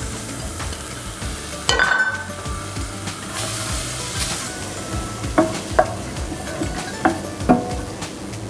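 Chopped onion and celery tipped from a plate into a hot stainless steel pan of olive oil, with a clatter about two seconds in, then sizzling as they are stirred with a spoon that knocks against the pan about four times near the end.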